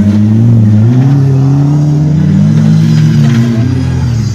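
Off-road racing 4x4's engine revving hard under load; the pitch climbs at the start, holds high and steady, then drops near the end as the driver comes off the throttle.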